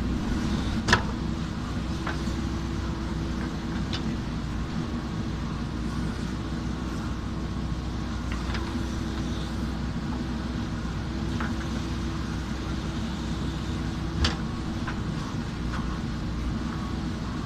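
JCB backhoe loader's diesel engine running steadily, with a few short sharp knocks from the machine at work, the loudest about a second in and again near the end.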